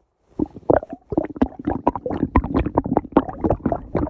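Stomach growling: after a brief pause, a fast, continuous run of gurgles and small pops.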